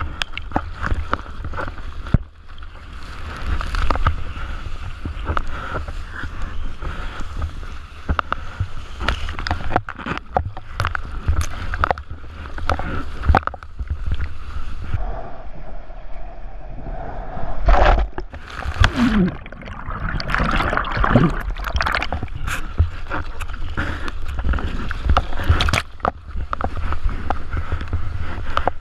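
Ocean water sloshing, gurgling and splashing around a GoPro action camera in the surf, with many irregular splashes and a constant low rumble on the microphone.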